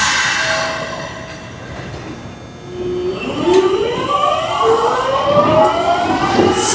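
Kintetsu 3200 series electric train pulling away. Its early Mitsubishi GTO-VVVF inverter holds a steady low tone, then from about three seconds in whines in several tones that climb in pitch as the train accelerates. A short hiss sounds at the very start.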